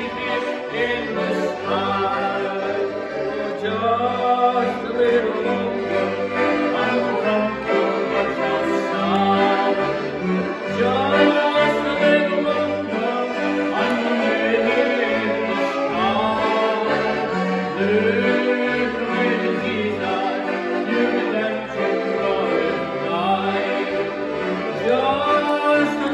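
Two piano accordions playing a gospel song tune together, with held melody notes over bass notes on a steady beat, as an instrumental passage between sung lines.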